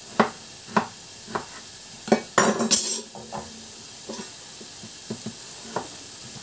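Kitchen knife chopping raw pork on a wooden cutting board: a run of sharp knocks, a louder scrape about two and a half seconds in, then a few softer knocks. A pan of pork sizzles faintly underneath.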